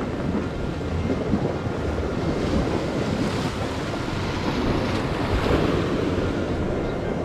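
Sea surf washing against a rocky shore, surging louder twice, with wind rumbling on the microphone.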